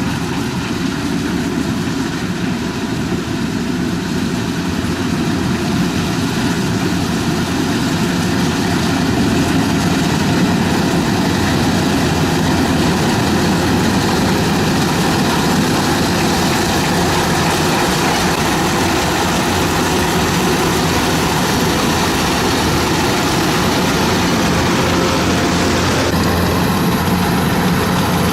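Rice combine harvester running steadily: a loud, even engine-and-machinery drone. The sound changes slightly near the end.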